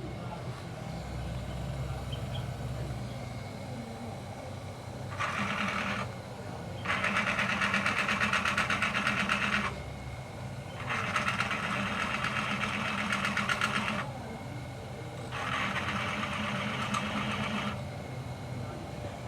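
Four bursts of fast mechanical clattering, each one to three seconds long, over a steady low hum.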